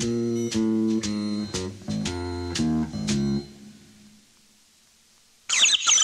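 A short music interlude of plucked guitar and bass notes, ending about three and a half seconds in and fading to near silence. Half a second before the end, a rapid run of high, bird-like chirping starts suddenly.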